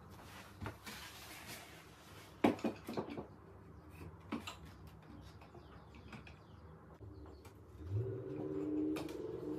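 Curtain panel being slid and bunched along a curtain rod: soft fabric rustles and light knocks, with a couple of sharper clacks about two and a half seconds in. Near the end a low, steady cooing begins.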